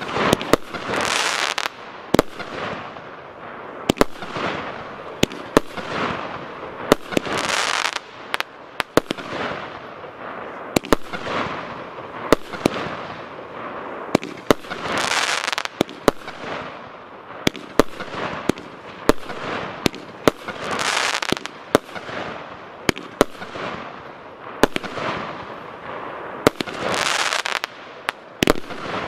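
A Sky Flash 'Jupiter' 25-shot, 30 mm consumer firework battery (cake) firing shot after shot. Sharp reports come every second or two, and many of them are followed by about a second of hissing spray as the stars burst.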